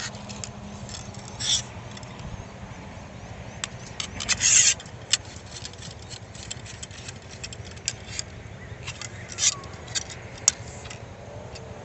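Hands handling a small screw-type clamp lantern hanger and its packaging: scattered clicks and scrapes, with a few short rustles about a second and a half in, near the middle, and near the end.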